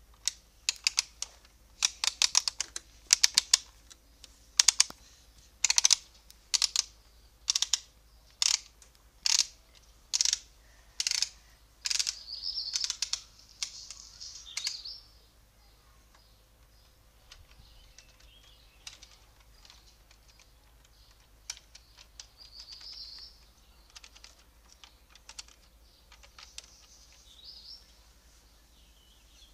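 Plastic ratchet of a Bruder Liebherr toy crane clicking as its boom is worked by hand. Quick runs of sharp clicks come about once a second for roughly twelve seconds, then only a few faint clicks follow.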